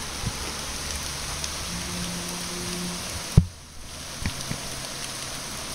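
Steady rain falling on wet pavement and surfaces, a constant even patter. A single sharp thump about three and a half seconds in is the loudest moment.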